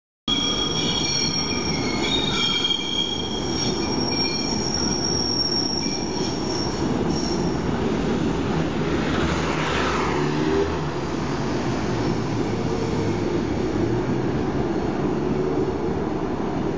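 Light-rail train's steel wheels squealing in several high steady tones over the rumble of the train running on the track. The squeal dies away about six or seven seconds in, leaving a steady rolling rumble.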